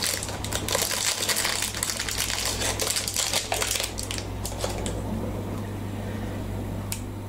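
Thin clear plastic wrapping crinkling and crackling as it is peeled off a small glass miniature fish bowl, busy for the first few seconds, then dying down to a few light clicks.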